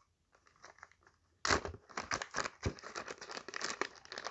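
Small clear plastic resealable bag crinkling and crackling as hands handle it, starting about a second and a half in.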